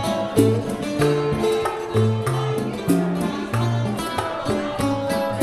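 Live Cuban trio playing a bolero: nylon-string guitar and tres (Cuban folk guitar) plucking and strumming over a small percussion kit.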